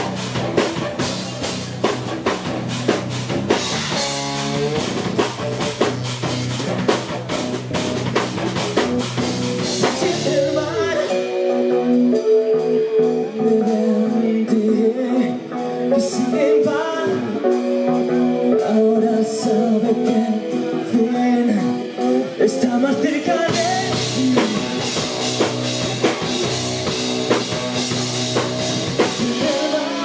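Live rock band playing: drum kit, bass guitar, keyboards and a male singer. About ten seconds in, the drums and bass drop out, leaving sustained melodic lines and voice. The full band comes back in for the last quarter.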